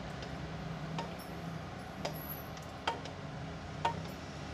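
A spatula clinking against the side of a metal pot while stirring coconut-milk egg curry: four sharp clicks about a second apart, over a steady low hum.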